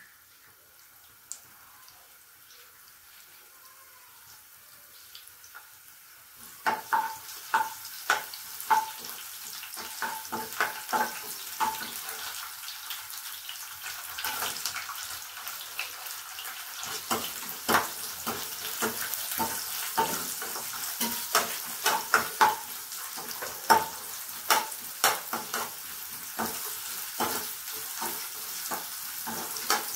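Chopped garlic sizzling in oil in a nonstick pan, faint at first. After a few seconds a stainless steel slotted spoon starts stirring, knocking against the pan with sharp, irregular clicks. Once sliced onion is added, the sizzling grows louder under the stirring.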